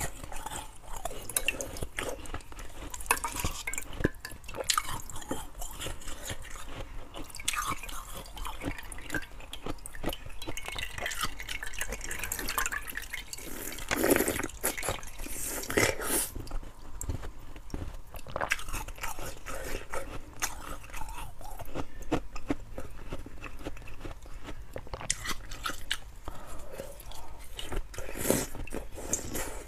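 Biting, crunching and sucking on a block of slushy ice frozen in a water bottle: irregular wet crackles and crunches, with a few louder bites, and meltwater dripping into a glass bowl.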